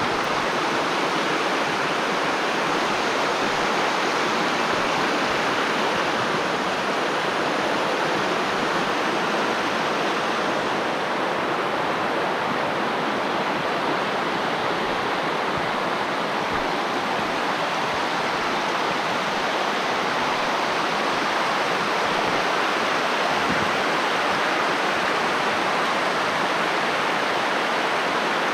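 Steady rush of a river flowing over stones, an even hiss of running water.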